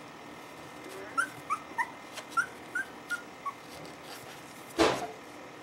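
Wire fox terrier puppies whimpering: a run of short, high squeaky whines, about eight in two and a half seconds, then one brief, louder noisy sound near the end.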